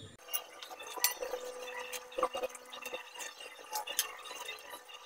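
A metal soup ladle clinking against a large stainless steel bowl while scooping soto broth: a scatter of sharp clinks, some ringing briefly, with light liquid sounds.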